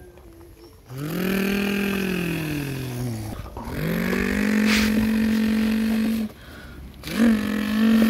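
A child imitating a truck engine with the voice: a long hummed engine noise that rises and falls in pitch, then a steady held one lasting a few seconds, and a third starting near the end.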